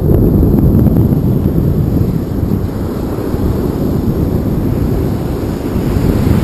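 Wind buffeting the microphone in a loud, steady low rumble, over breaking surf.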